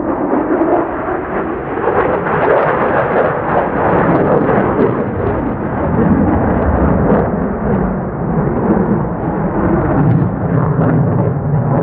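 F-35A fighter jet's single Pratt & Whitney F135 afterburning turbofan at full afterburner during a steep climb, a loud continuous rumble with crackle.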